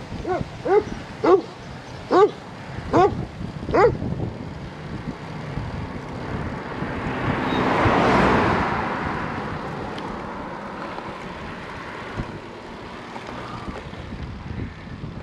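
A dog barks several times in quick succession over the first four seconds, each bark falling in pitch. Then a car passes close by the bicycle, its noise swelling to a peak about eight seconds in and fading away.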